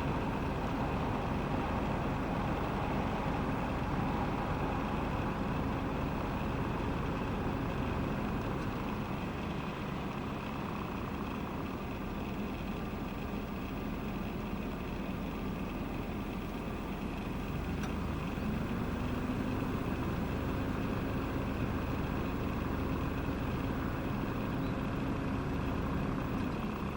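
Steady motor-vehicle engine hum and low rumble, with a new hum tone rising into place about eighteen seconds in.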